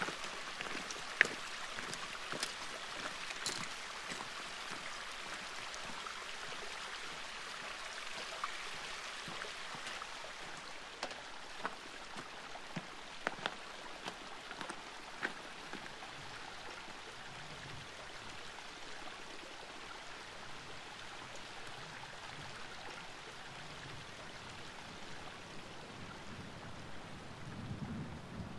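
A steady rush of running water, with scattered sharp clicks in the first half from trekking-pole tips and boots striking the rocky path.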